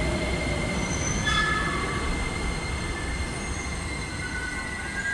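Beijing Subway Batong line train with a Toyo Denki IGBT-VVVF inverter, moving at low speed along the platform: the inverter and traction motors whine in several thin high tones over wheel rumble, with one tone falling in pitch at the start as the train slows.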